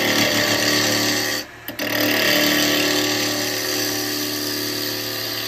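Wood lathe running at speed while a turning tool cuts into a spinning alder blank: a steady motor hum under the noise of the cut. The sound drops away briefly about a second and a half in, then the cutting resumes.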